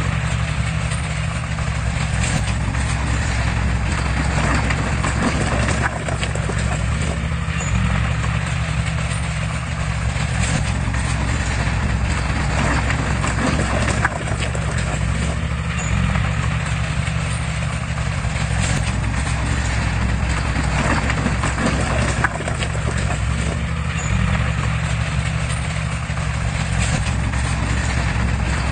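Heavy diesel engine of earthmoving equipment running steadily, with scattered knocks over it.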